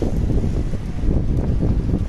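Wind buffeting the microphone: a low, irregular rumble that rises and falls in gusts.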